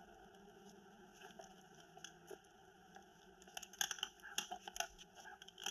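Quiet background, then from about three and a half seconds in a quick run of light clicks and clatters: guns being put down and handled.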